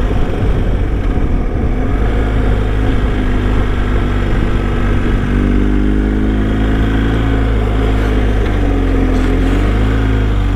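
BMW R1250 GS boxer-twin motorcycle engine running under way on a twisting climb. From about halfway the engine note rises and falls with the throttle.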